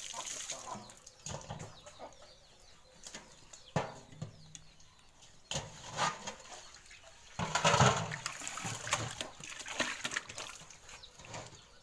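Live fish thrashing in a metal pot of water, giving several sudden splashes, the biggest about eight seconds in.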